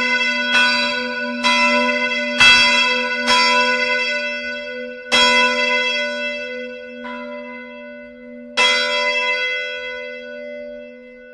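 Swinging bronze church bells ringing out at the end of a peal. The clapper strikes come about a second apart at first, then thin out to a few irregular strokes as the bells come to rest, the last about three-quarters through. A long humming ring-out follows.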